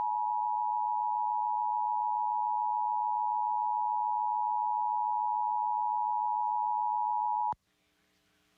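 Emergency Alert System attention signal: the two-tone EAS alert tone, held steady and loud, then cutting off suddenly about seven and a half seconds in.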